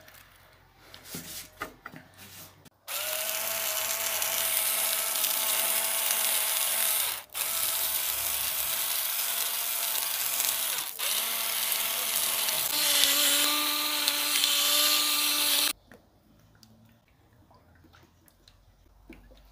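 Electric spice grinder's small motor whirring as it grinds seasoning, in three runs with two brief breaks about 7 and 11 seconds in, its whine changing pitch shortly before it stops about 16 seconds in.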